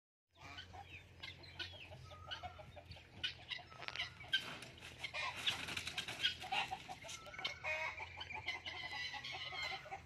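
Chickens clucking and squawking among other poultry calling, with brief bursts of wing flapping.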